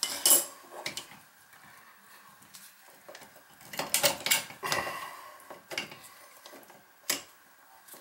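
Clinks and scrapes of a metal spanner flange repair ring and closet bolt being worked into place under a broken toilet flange: a string of short sharp clicks, busiest around four to five seconds in, with one lone clink about seven seconds in.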